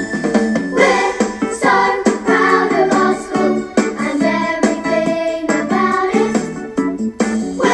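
Upbeat children's song with singing voices over a backing track.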